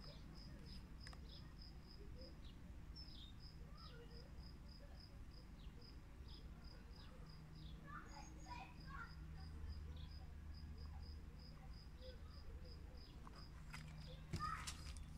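Faint insect chirping, a steady high cricket-like chirp repeated about five times a second. Near the end a book page is turned with a short, louder paper rustle.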